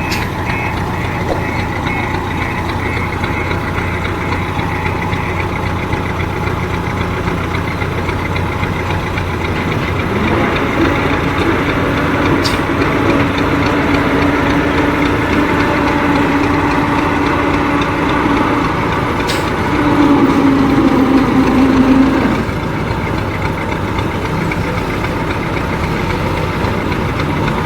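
Heavy diesel construction machinery running steadily. About ten seconds in, a strong hum joins it, grows louder near twenty seconds and drops away a couple of seconds later, with two short clicks along the way.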